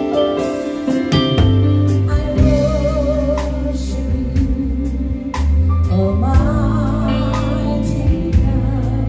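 Live gospel band playing a slow worship song on keyboards, electric guitar, bass guitar and drums, with a singer's voice carrying the melody. The bass and drums come in about a second in, and the singing enters a second or so later with a wavering vibrato.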